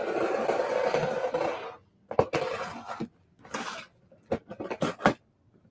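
Packing tape on a cardboard shipping box being slit open with a blade in one long scraping stroke lasting nearly two seconds. This is followed by several sharp knocks and taps as the cardboard box is handled and its flaps opened.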